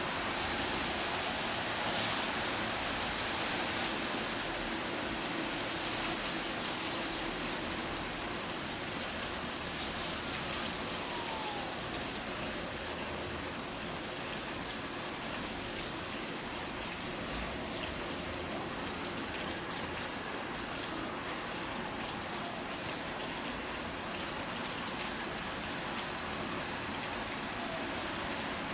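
Steady rain falling on surfaces, an even hiss with no breaks.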